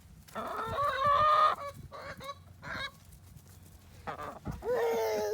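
Chickens calling: a drawn-out squawk about half a second in, then a shorter falling call near the end.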